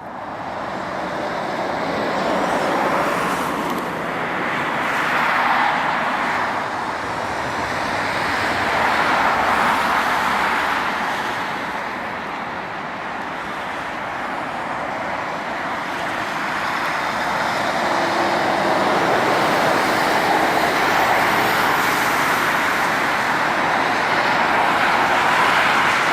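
Four-engine Airbus A340-600 airliner on final approach and landing, its Rolls-Royce Trent 500 turbofans making a loud, steady jet noise that swells and dips gently and builds again over the last several seconds.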